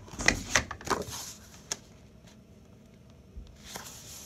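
Sheets of cardstock rustling and tapping against a tabletop as hands shift and press them, with several short clicks in the first second and a half, then quieter handling.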